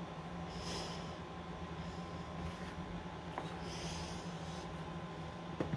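A person's breathing close to the microphone over a steady low room hum. There is a light tap about three and a half seconds in, as a small resin figurine is set down on a display riser.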